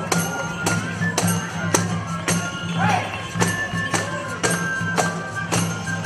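Flute band and drum: several transverse flutes play a tune in unison over a steady drum beat of about two strokes a second.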